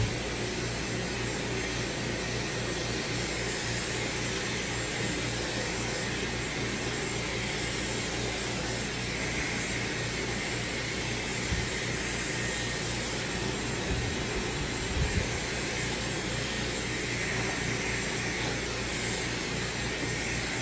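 Dyson Supersonic hair dryer running steadily, blowing air through the hair, with a few light knocks about halfway through.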